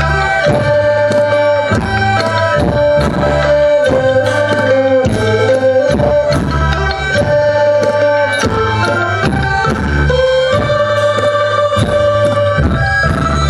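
Live traditional Thai folk ensemble playing processional dance music: held melodic tones over a steady drum beat.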